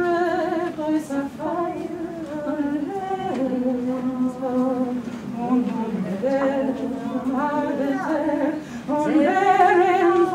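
A woman singing a slow, unaccompanied melody, holding long notes that glide between pitches, louder near the end.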